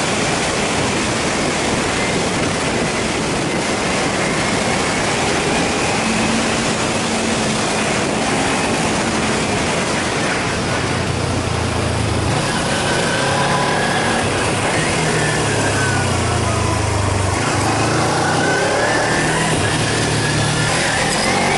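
Kawasaki Ninja 250 motorcycle engine heard onboard while riding, under a steady rush of wind noise, its note rising and falling with the throttle through the second half.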